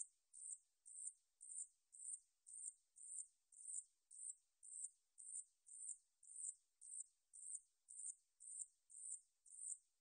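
Mountain katydid (san-yeochi, Paratlanticus ussuriensis) singing: a faint, high, buzzy chirp repeated evenly about twice a second.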